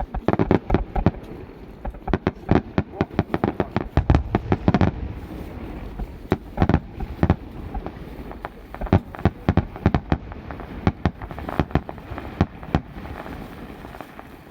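Fireworks display: rapid volleys of aerial shell bursts, a dense flurry of bangs over the first few seconds, then scattered bursts and a second flurry, thinning out near the end.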